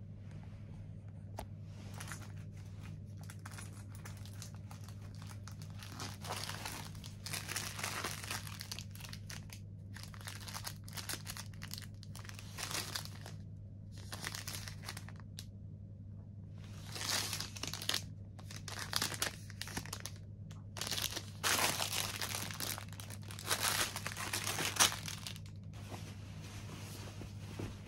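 Crinkling and rustling of a nylon mesh amenity bag and the sealed packets inside it as they are handled and pulled out, in irregular bursts that get louder in the second half. A steady low hum runs underneath.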